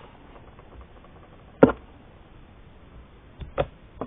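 Homemade slime being squished and stretched by hand, giving three sharp pops: one about a second and a half in, then two in quick succession near the end.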